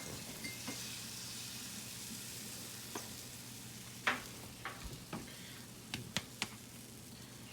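Pancake batter sizzling on a hot greased pan, a steady hiss. In the second half come a handful of short sharp ticks.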